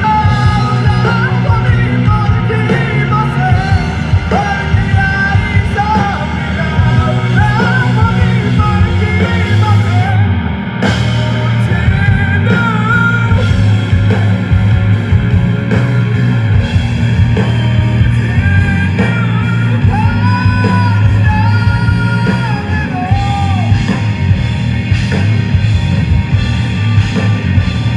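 Rock song with a singer over a full band, playing loudly throughout.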